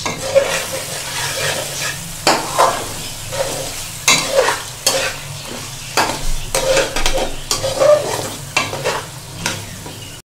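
Chicken pieces frying in oil and masala in a metal pan, sizzling, while a steel spoon stirs them with frequent scrapes and clinks against the pan.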